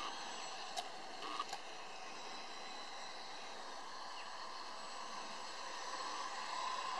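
Small electric motor and propeller of a GWS Pico Tiger Moth RC biplane buzzing steadily in flight, a little louder near the end as it comes closer. A few light clicks about a second in.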